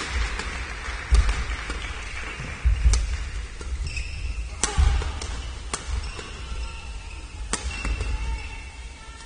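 Badminton doubles rally: rackets striking the shuttlecock with sharp cracks, about five hits one to two seconds apart, with thudding footfalls and shoes squeaking on the court.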